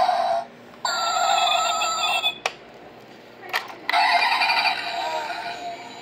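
Tinny electronic engine sound effects from the toy car's built-in speaker, cutting out and restarting twice, with two sharp plastic clicks during the pause in the middle.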